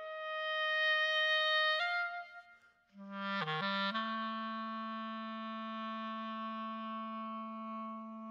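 Solo clarinet playing slow, sustained notes: a long high note that steps up slightly and fades out about two seconds in, then after a short pause a quick flurry of grace notes leading into a long low note that slowly fades.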